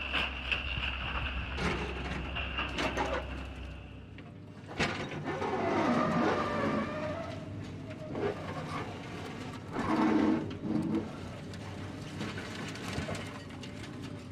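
Crawler excavator working: the engine runs and the machine clanks and scrapes. The sound changes abruptly about four seconds in, from a steady hum to uneven, surging machine noise with knocks.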